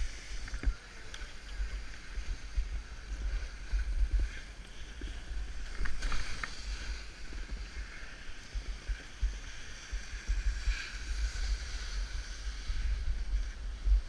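Wind buffeting the microphone of a helmet-mounted GoPro as a low, gusting rumble, with a snowboard scraping over packed, groomed snow underneath, including a few sharper scrapes about six seconds in.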